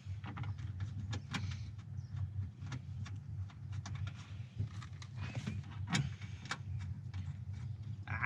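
Scattered clicks, taps and light metallic rattles of car door parts and fasteners being handled, over a steady low hum.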